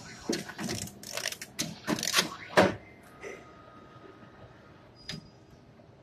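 Automatic wire harness taping machine's mechanism clattering: a quick irregular run of sharp clicks and clacks over the first few seconds, the loudest about two and a half seconds in. Then a faint steady whine with a single click about five seconds in.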